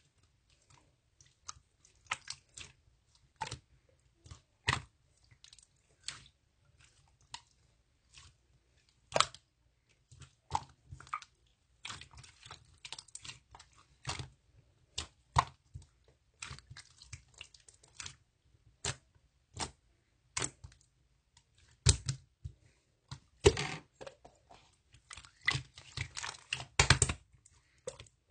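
Slime being squeezed and poked by hand: irregular sticky clicks and pops, scattered at first and coming thicker near the end.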